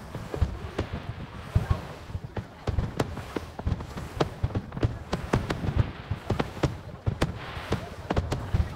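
Aerial firework shells bursting overhead: many sharp bangs in quick, irregular succession.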